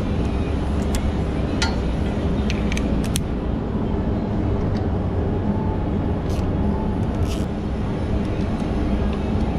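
Steady low rumble of running machinery, with a few light metallic clicks and clinks from hands and tools working at the plow pump's wiring.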